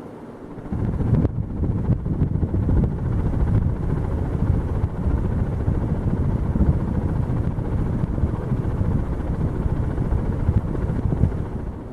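Air moved by a spinning Hunter Oceanus ceiling fan buffeting the microphone: a loud, uneven low rumble that starts about a second in and eases off near the end.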